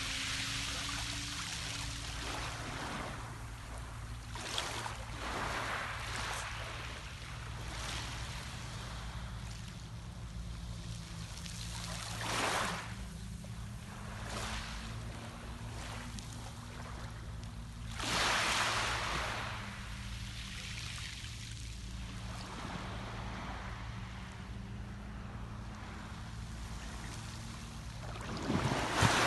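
Mediterranean sea waves washing in at irregular intervals, each swell a rushing hiss, with three or four stronger surges. Beneath them runs a steady low hum with a slowly wavering pitch.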